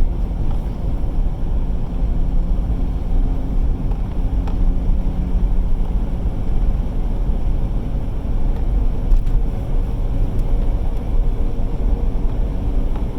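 Steady low rumble of a Ford Explorer running, its engine and road noise heard from inside the vehicle; it is running smoothly with no misfire codes showing.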